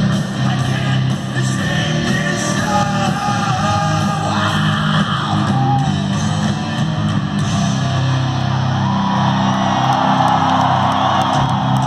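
Hard rock band playing live in an arena: electric guitars and drums with a singer, loud and thick with the hall's echo as heard from the crowd.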